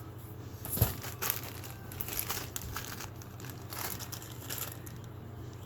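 Packaging crinkling and rustling in irregular bursts as an item is handled and unwrapped, with a single thump about a second in.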